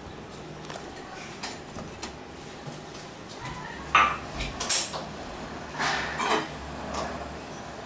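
Steel kitchen utensils being handled at a gas stove while tea is made: a few faint clicks, then a run of sharper clinks and clanks of pot and cups, the loudest about four seconds in.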